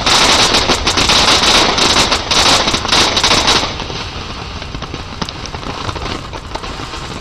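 Ground fountain firework spraying sparks with a loud crackling hiss, thick with sharp pops, that cuts off suddenly about three and a half seconds in. A few scattered pops follow.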